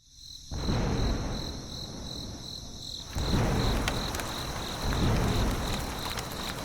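A high-pitched chirp pulsing evenly about twice a second, like an insect, over a rough, uneven low rumbling noise that grows louder about half a second in and again about three seconds in.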